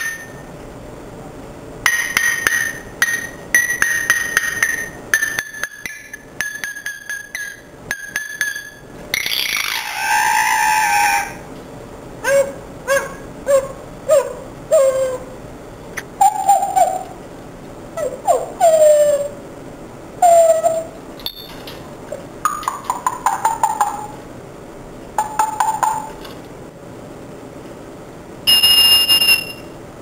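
Pet parrot calling in its cage: short chirps, notes that slide downward, a longer rough call about ten seconds in and a high whistle near the end. In the first several seconds there are runs of rapid clinking and ringing.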